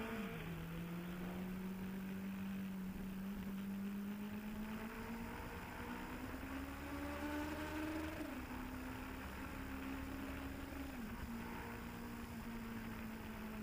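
Suzuki GSX-R sport bike engine running under way, heard through a helmet Bluetooth microphone with a steady rush of noise. Its note climbs slowly and drops several times: near the start, about eight seconds in and about eleven seconds in.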